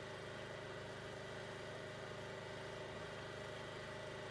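Faint, steady hum of an engine running at an even speed, with several held tones and no change.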